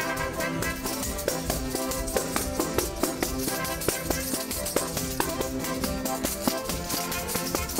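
Live folk music from a string band: acoustic guitars strummed over held melodic notes, with a brisk beat of sharp percussive strokes.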